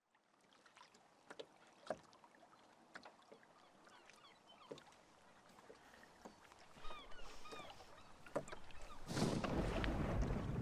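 Sea ambience from a film soundtrack. Faint scattered knocks and creaks come first, then a few short cries about seven seconds in. About nine seconds in, a rush of water and wind swells up.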